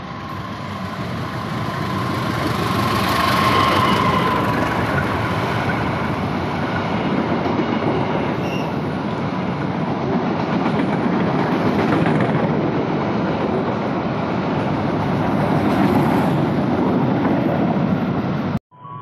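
Sawunggalih intercity passenger train, hauled by a diesel locomotive, running through a station: the rumble of the locomotive and of the coaches' wheels on the rails builds over the first few seconds and then holds steady as the carriages go by. A faint high tone rings for the first few seconds.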